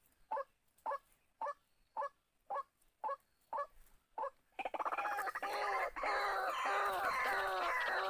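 White-breasted waterhens calling. First a single note repeats evenly a little under twice a second, then from about halfway a louder, busier run of overlapping croaking calls.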